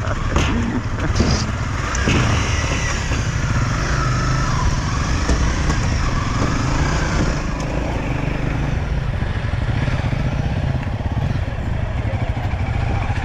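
Dirt bike engine running steadily while being ridden, with a steady rushing noise over it.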